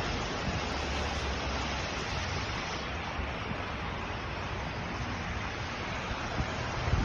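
Steady rushing of floodwater: an even, unbroken wash of noise.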